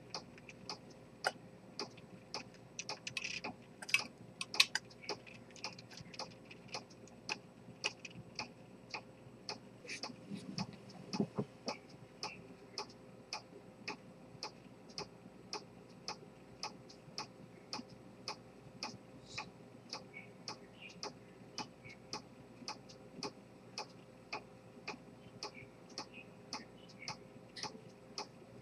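Rose-gold chronometer pocket watch with an Earnshaw detent escapement ticking steadily, about two and a half sharp ticks a second. A few louder clicks come in the first five seconds, and a low knock near the middle.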